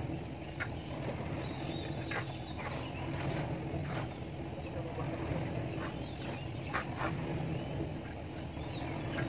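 An engine running steadily with a low hum, with scattered short knocks and scrapes over it.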